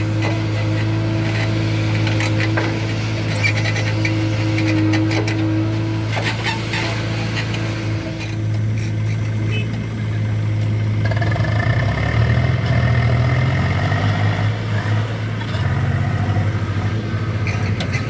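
Diesel engines running steadily: a JCB backhoe loader working, with a few knocks and clanks in the first few seconds. From about eleven seconds in, a Swaraj 735 FE tractor's diesel engine revs up as it pulls away with a loaded trolley of soil.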